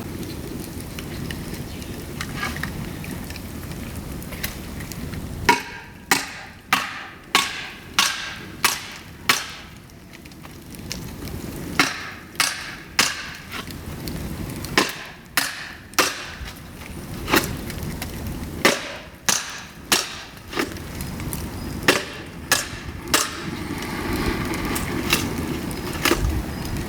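Dry bamboo cracking: a long run of sharp, loud cracks, irregular but often one or two a second, starting about five seconds in.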